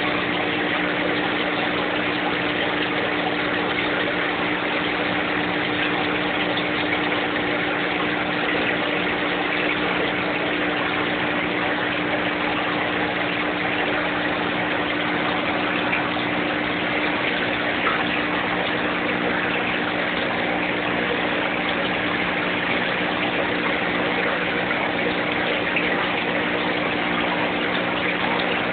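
Aquarium pump humming steadily under a constant rush of bubbling, splashing water, unchanging throughout.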